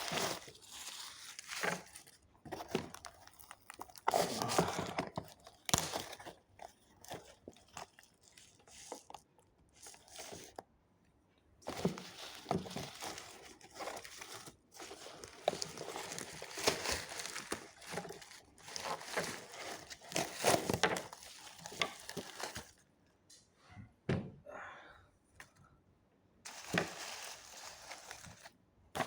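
Toy packaging being handled and opened: irregular crinkling and tearing, with occasional thunks and brief quieter pauses.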